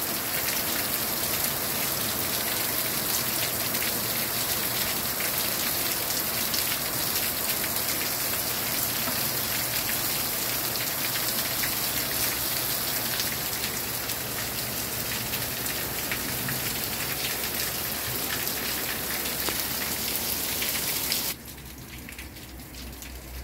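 Torrential downpour: heavy rain pouring steadily, with many individual drops ticking sharply close by. About 21 seconds in it cuts abruptly to a quieter, duller rain.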